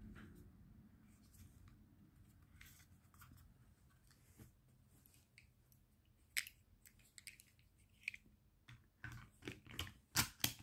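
Scattered small clicks and knocks as a Springfield Armory XDE BB pistol's metal magazine is handled. The clicks get louder and more frequent about six seconds in, with a quick cluster of the loudest ones near the end.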